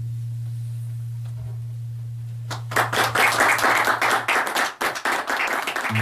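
A low final note is held steadily and fades out about four seconds in. Applause breaks out over it about two and a half seconds in and carries on.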